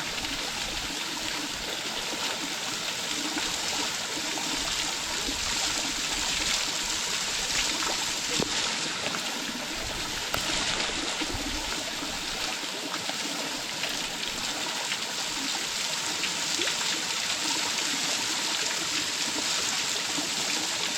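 Small waterfall's water falling and splashing into its pool, a steady rushing hiss with no breaks.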